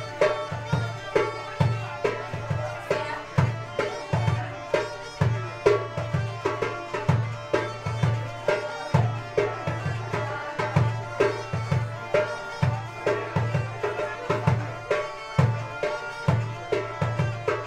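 Belarusian bagpipes playing a lively folk dance tune over a steady drone, with a drum beating a regular pulse about twice a second.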